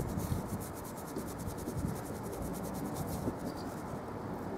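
Small paintbrush scratching and dabbing primer onto the rough end grain of a timber post.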